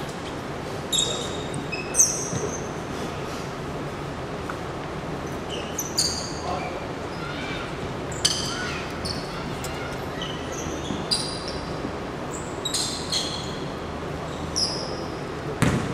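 Basketball shoes squeaking on a hardwood gym floor, short high squeaks every second or two as players shift their feet, over the hum of a large hall. A ball thumps on the floor near the end.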